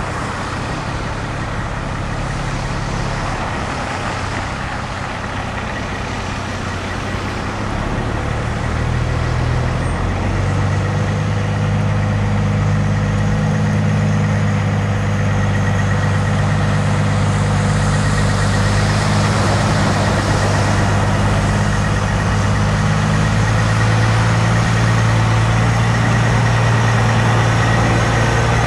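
Diesel engine of an American-style long-nose semi truck running at low speed as it pulls slowly through a car park. It grows louder from about ten seconds in as the truck comes closer.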